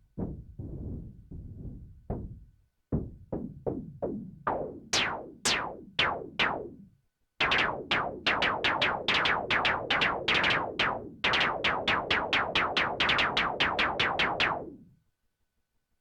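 Behringer Crave analog synthesizer playing a rhythmic pattern of short plucked notes, about four a second, each with a quick downward filter sweep. The filter is opened up as it goes, so the notes grow from dull to bright. There are brief gaps about 3 and 7 seconds in, and the pattern stops about 15 seconds in.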